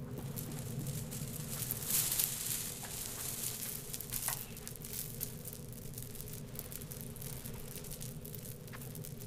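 A steady low hum with scattered crackling and rustling, and a brief rush of hiss about two seconds in.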